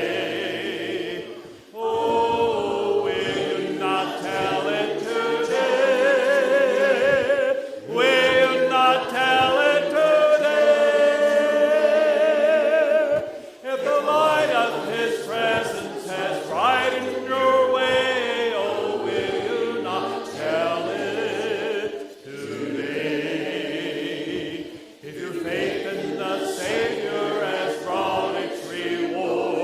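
Congregation singing a hymn together, many voices in sustained phrases with short breaks between lines.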